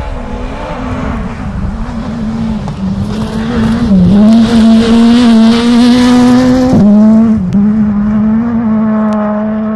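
Škoda Fabia S2000 rally car's four-cylinder engine at high revs as the car approaches and passes at speed. The note dips briefly at gearshifts about four and seven seconds in, is loudest between them, then fades as the car moves away.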